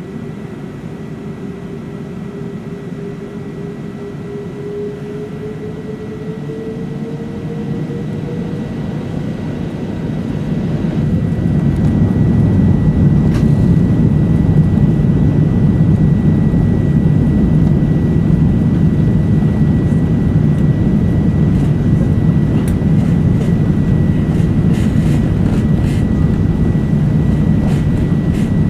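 Airbus A380's Rolls-Royce Trent 900 engines spooling up for take-off, heard inside the cabin: a whine rising slowly in pitch, then about ten seconds in the cabin fills with a loud, steady low rumble as take-off thrust builds.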